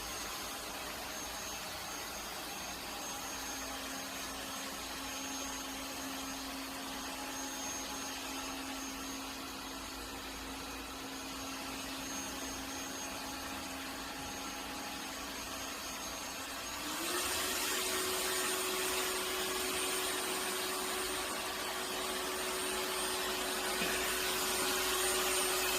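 Robot vacuum cleaner running with a steady motor hum. About two-thirds of the way through, its motor steps up to a higher pitch and runs louder, with a high whine on top, as when the suction power increases.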